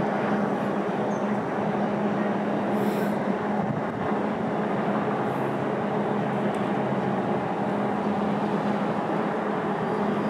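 Steady machinery drone with a constant low hum that holds its pitch throughout, and a brief hiss about three seconds in.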